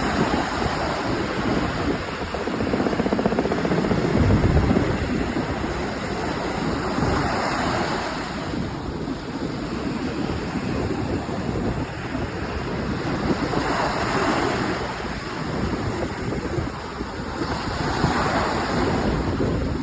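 Ocean surf breaking and washing up the shore, swelling louder every few seconds as each wave comes in, with wind buffeting the microphone.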